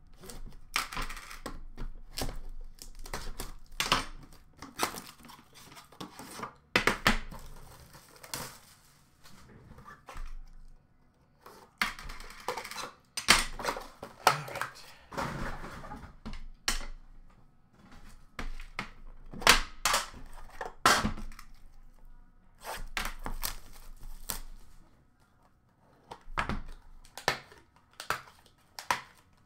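An Upper Deck The Cup hockey card tin being unwrapped and opened by hand: packaging tearing and crinkling, with irregular knocks, scrapes and clanks of the metal tin and its lid.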